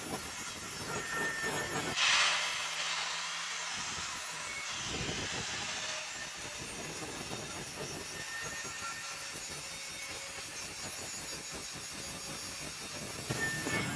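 Angle grinder with a grinding disc grinding a steel bar: a steady, hissing machine noise. It is loudest about two seconds in and again near the end.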